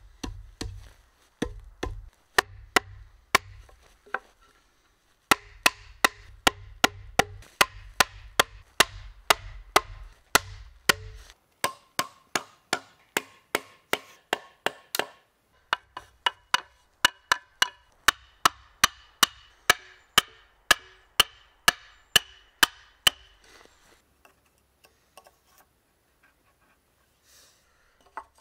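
Hammer tapping a wooden wedge into the through-tenon of a sawhorse's nuki beam, about two sharp wood knocks a second with a short pause about four seconds in, driving the wedge tight to lock the frame. The taps stop a few seconds before the end.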